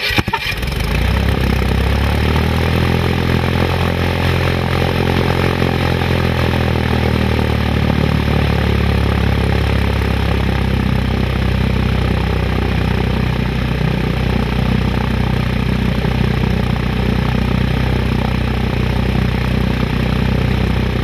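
Cessna light airplane's piston engine and propeller, just started, running at a steady idle. It comes up to full level in the first second, then holds an even, low, throbbing note.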